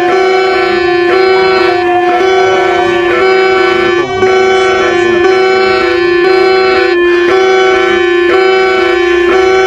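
Loud electronic emergency alert tone: a steady droning note under bell-like tones that change pitch about every half second, with a brief break about four seconds in.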